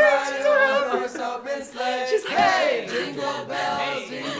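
A group of young men and women singing a Christmas carol together, holding notes.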